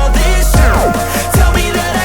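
Electronic background music with heavy bass drops and falling synth sweeps, no vocals.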